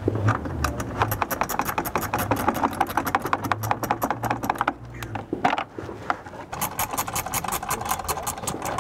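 Ratcheting wrench clicking rapidly as it backs out a bolt holding the front bumper, in two runs with a short break in the middle.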